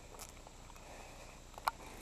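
Faint, scattered clicks and taps of an airsoft game, with one sharp click about one and a half seconds in.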